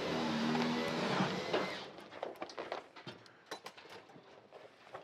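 Synthetic house wrap being pulled off its roll: a steady rustling for about the first two seconds, then scattered crinkles and light taps as the sheet is handled.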